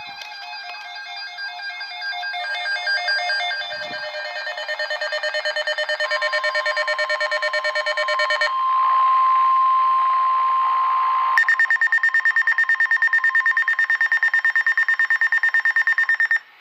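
Emergency Alert System alarm tones: a run of rapidly pulsing electronic beeps that step down in pitch, then a steady high tone for about three seconds, then a louder, fast-pulsing buzzy tone that starts suddenly and cuts off sharply.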